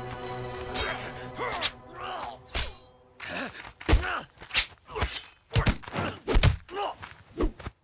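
Film fight sound effects: a rapid series of punch and body-blow impacts with grunts and shouts from the fighters, over the score. The music carries the first few seconds. The blows come thick and fast from about three seconds in.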